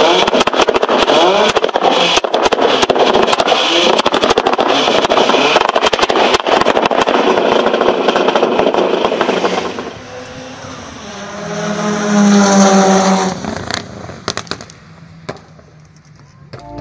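Ford Sierra RS Cosworth's turbocharged four-cylinder engine running loud at a standstill, with constant sharp crackles and pops. About ten seconds in it gives way to a race car passing on a circuit, its engine note rising and falling, then fading.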